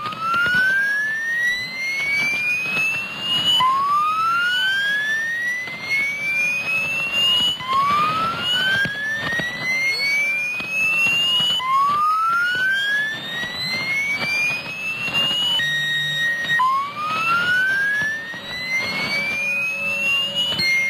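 Recorded radio signal, said to be a HAARP transmission: a whistling tone that sweeps upward over about four seconds, drops back and sweeps up again, repeating, over crackling static, with fainter falling sweeps beneath. About three quarters of the way through it hiccups into a short steady tone before the sweeps resume.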